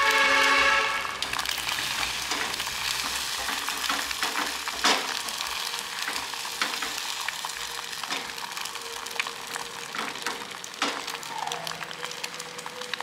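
Beaten egg frying in a nonstick pan, a steady crackling sizzle with scattered pops. A loud, brief pitched tone sounds in the first second.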